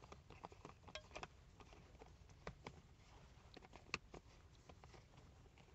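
Faint, irregular small clicks and taps from a hand working the tail end of a Coast Polysteel 650R flashlight, the sharpest about four seconds in.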